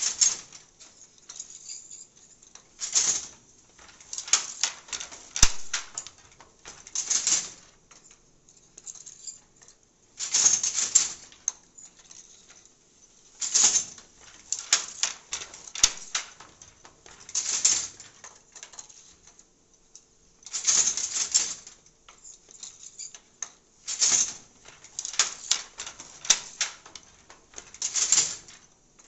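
Wooden handloom clattering in bursts of rapid clacks every few seconds as the beater is knocked against the cloth and the shuttle is passed through.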